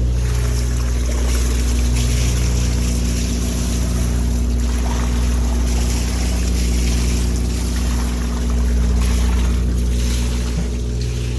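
Fishing boat's engine running at a steady speed, a low even hum with a steady rushing hiss over it.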